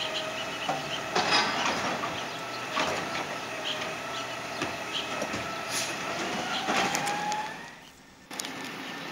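Side-loading garbage truck (2021 Peterbilt 520 with a New Way Sidewinder body) working a cart: hydraulic whine over the diesel engine, with several bangs of the cart and trash dropping into the hopper, and a rising whine near the end.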